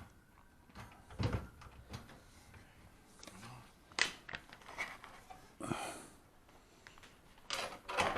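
Scattered knocks and clicks of tools and panel parts being handled while a refrigerator's hinge cover is taken apart. The knocks come at irregular times, and the loudest cluster is near the end.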